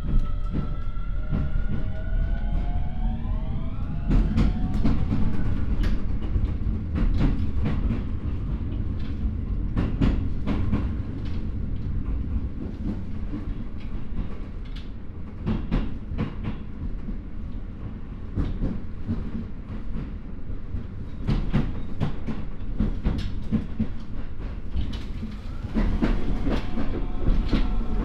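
Keio 9000 series electric train with a Hitachi IGBT VVVF inverter, heard from inside the motor car. The inverter and traction motors whine in several tones that rise in pitch over the first few seconds as the train accelerates, then fade out. After that the wheels rumble steadily with repeated clicks over rail joints, and steady motor tones return near the end.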